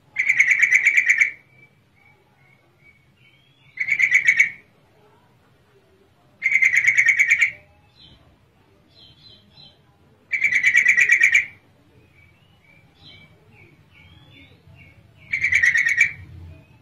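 Female yellow-vented bulbul (trucukan) calls: five loud bursts of fast chattering notes, each about a second long and a few seconds apart, with softer chirps in between. It is a female calling for a male, played as a lure to make a caged bird answer.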